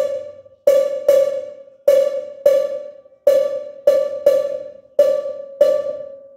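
LP Aspire cowbell struck by a DW 2000 foot pedal's beater, playing a clave rhythm: about ten strokes, each a loud metallic clank at one steady pitch that rings and fades before the next.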